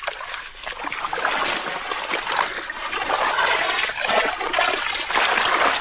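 Footsteps wading through shallow, muddy swamp water, with irregular splashing and trickling as the legs move through it.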